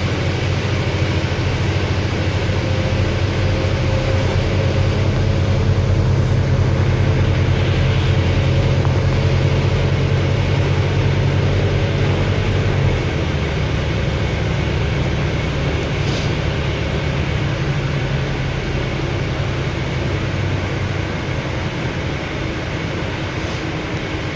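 Volvo Olympian double-decker bus's diesel engine and drivetrain heard from inside the upper deck while the bus drives along, a steady deep drone over road noise. The engine drone eases a little about halfway through.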